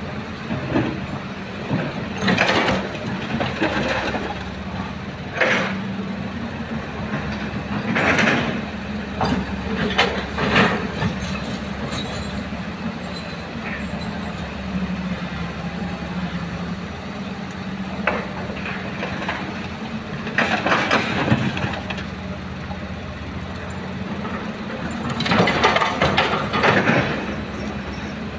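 Heavy diesel engine of an excavator working at a steady hum, with repeated rough rushes and clatter of soil and rock being dug and dumped into a dump truck's bed, each lasting a second or two.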